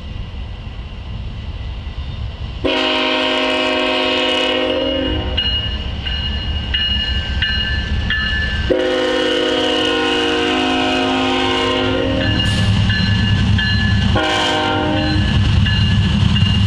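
Five-chime Nathan K5HLL air horn on an approaching CSX diesel locomotive sounding the grade-crossing signal: a long blast, a pause, a second long blast, a short one, and the last long blast starting at the very end. A low diesel rumble runs beneath, building between the blasts.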